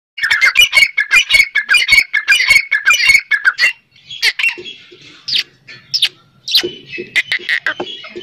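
Grey francolins calling: a fast, dense run of loud, shrill repeated notes for the first three and a half seconds, then sharper calls spaced further apart.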